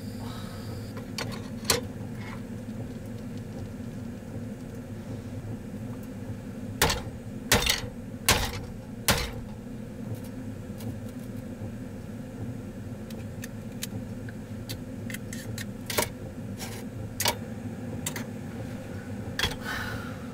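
Hand-handled utensils or small hard objects clicking and knocking a dozen or so times, loudest in a cluster about seven to nine seconds in, over a steady low hum.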